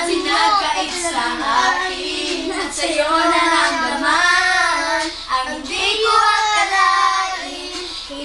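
Children singing a song, their voices close and loud.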